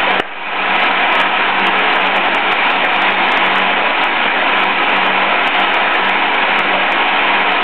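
Vacuum evaporator running with a steady whirring noise and a low hum, while its concentrate pours in a thin stream from the outlet into a plastic jug. The noise dips briefly just after the start.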